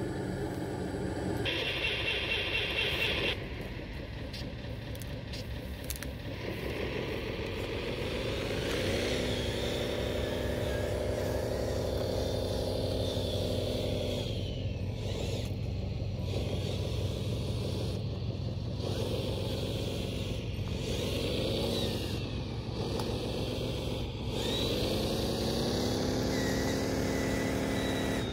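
Radio-controlled model Cat mining machines (6015B excavator and 793D haul truck) working, their engine sound revving up and down in pitch over a steady low hum. A high tone sounds for about two seconds near the start.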